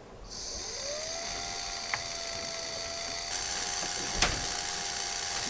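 Small turbine water-flow sensor spun by breath blown through it: a whine that rises as the rotor spins up about half a second in and then holds steady, over the hiss of the blowing, with a click just past four seconds. Each turn of the rotor is counted as litres by a homemade Arduino flow meter.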